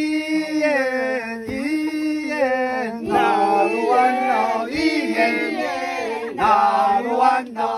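A group singing an Amis song together in a chant-like style, the voices holding long notes and sliding between pitches.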